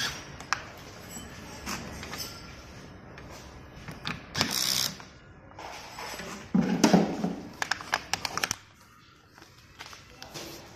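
Semi-automatic pneumatic spout-pouch filling machine at work, with plastic pouches handled around it. There is a short hiss about four seconds in, then a louder mechanical burst followed by a quick run of sharp clicks a little past the middle.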